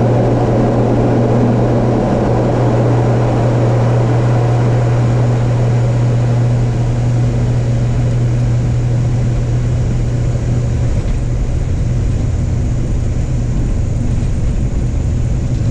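Twin turboprop engines and propellers of an ATR airliner at takeoff power, heard inside the cockpit during the takeoff roll: a loud, steady propeller drone with a constant low hum. The higher part of the noise eases a little about halfway through.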